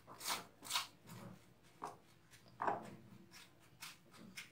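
Dry breadcrumbs rustling and crunching as hands sprinkle them over a chicken finger and press it into a plastic tub of crumbs: a string of short, soft, scratchy rustles, the loudest about two-thirds of the way through.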